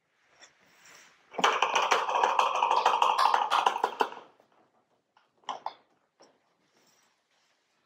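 A small glass dish being scraped and tapped to empty a dry powder of tartaric acid and bicarbonate of soda into a plastic bottle: a dense, rapid scraping rattle for about three seconds. A few short clinks follow as the dish is put down.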